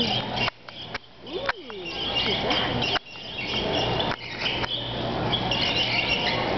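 Squeaky shopping-cart wheel giving a string of high, chirping squeaks as the cart is pushed along, with brief breaks a few times.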